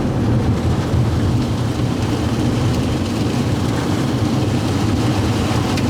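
Car driving, heard from inside the cabin: a steady, low engine and tyre rumble from tyres running over volcanic ash on the road.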